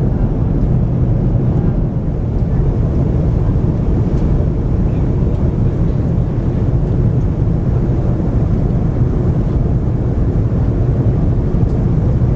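Steady low rumble of engine and airflow noise inside the cabin of an Airbus A340 airliner descending on approach.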